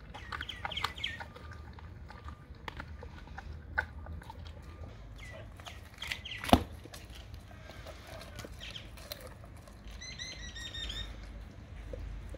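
Dog chewing a raw salmon head: irregular wet crunches and clicks of teeth on fish bone and skin, with one much louder sharp crack about six and a half seconds in. Birds chirp in the background, with a short run of chirps near the end.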